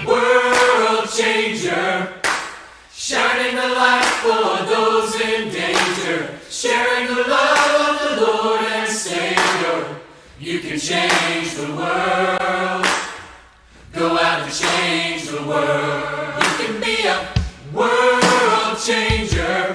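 A choir singing in background music, with sustained sung phrases and short breaks between them.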